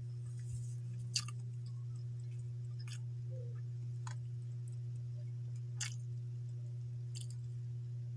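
Someone eating a meal of rice by hand: a few short, sharp mouth clicks and smacks of chewing, spaced a second or more apart, over a steady low hum.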